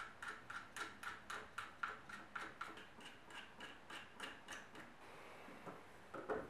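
Faint, quick, even ticking, about four ticks a second, that stops about five seconds in, followed by a soft knock.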